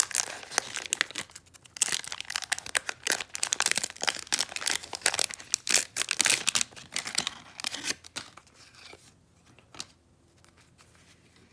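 Wax-paper wrapper of a 1989 Donruss baseball card pack being torn open and crinkled by hand: dense crackling that dies away about eight seconds in, leaving faint handling sounds.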